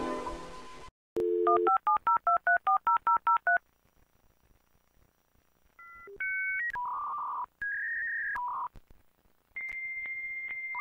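Dial-up modem connecting: a dial tone, then a quick string of touch-tone digits being dialed. After a short silence, the answering modem's tones and the start of the connection handshake come in as steady high electronic tones that change every second or so.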